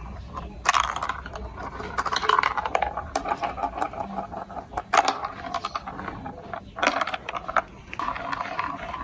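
Plastic marble-run building-block toy clicking and clattering: irregular sharp clicks and rattles, with a few louder knocks about a second in, around the middle and near the end.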